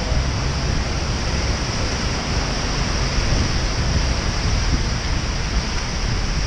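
Steady rush of wind buffeting the microphone of a camera moving on a bicycle, over the hiss of tyres on a wet road.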